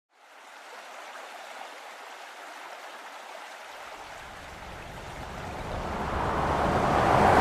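Rushing road and wind noise from a moving car. A low rumble joins about halfway through, and the noise swells toward the end.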